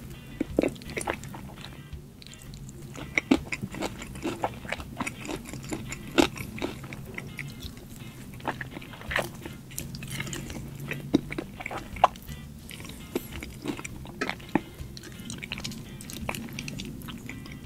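Close-miked chewing and biting of spicy fried chicken eaten off the bone by hand: many irregular wet mouth clicks and smacks. Soft background music plays underneath.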